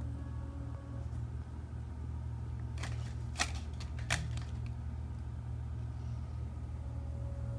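A steady low hum, with a few short crackling clicks about three and four seconds in.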